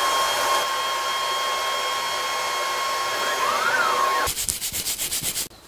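Longer B1 30W diode laser engraver running while engraving a stone: a steady fan hiss with a constant high whine. About four seconds in it stops and gives way to a rapid run of even clicks.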